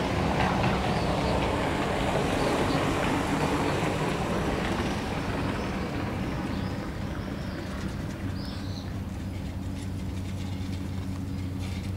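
A steady low engine drone, with a rush of passing-vehicle noise that swells in the first few seconds and fades away; small birds chirp a few times near the end.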